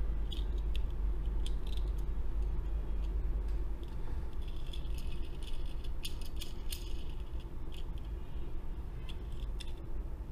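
Light clicks and rattles of a small die-cast metal toy front loader being turned over in the hand, in clusters that are busiest around the middle, over a steady low hum.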